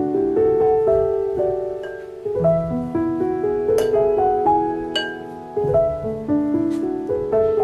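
Background piano music: a gentle run of single notes over held chords, with two sharp clicks about four and five seconds in.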